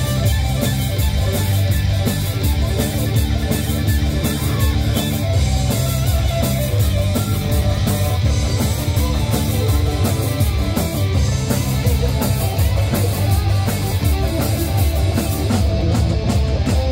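Rock band playing live: electric guitar and bass over a steady drum-kit beat, loud and unbroken.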